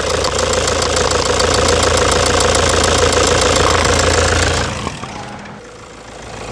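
Toyota Hilux D-4D diesel engine idling with a loud, steady, rapid knock: the sign of a stuck fuel injector. The sound fades out about five seconds in, and a quieter engine sound rises near the end.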